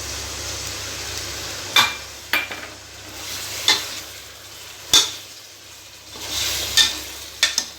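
Chicken and masala frying with a steady sizzle as a cup of yogurt is stirred into the pot, the spoon knocking against the pot about six times. The sizzle drops for a few seconds in the middle and picks up again near the end.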